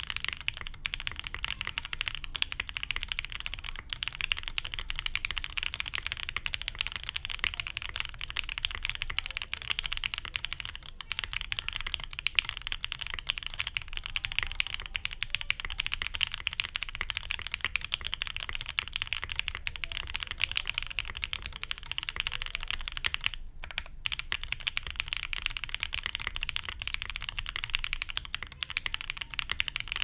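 Continuous fast typing on a Mode SixtyFive mechanical keyboard with Gateron Oil King linear switches on a POM plate in an isolated top mount, under GMK ABS keycaps: a dense stream of key clacks with one brief pause about three-quarters of the way through.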